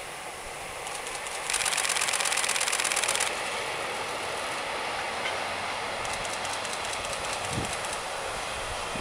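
Passenger train rolling past: the coaches of a blue-train sleeper behind three ED76 electric locomotives, a steady running noise with some clickety-clack of wheels over the rails. A loud, rapid pulsing buzz comes in about a second and a half in and stops abruptly after about two seconds, then returns more faintly later.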